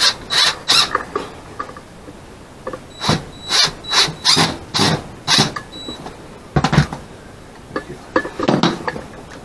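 Cordless drill/driver run in a string of short bursts, driving hardware at the foot of a wooden sliding barn door, with a heavier knock about two-thirds of the way through and a few lighter knocks near the end.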